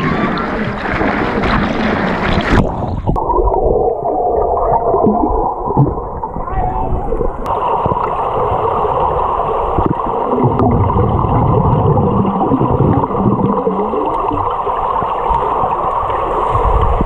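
Water splashing at the surface of a swimming pool, then, from about three seconds in, the dull, muffled sound of the pool heard from underwater, where the high sounds of the air drop away.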